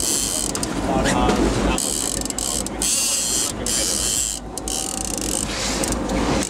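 Trolling reel's drag clicking and buzzing as a hooked king salmon runs and strips wire line off the reel, the buzz breaking off briefly now and then, over a steady low rumble.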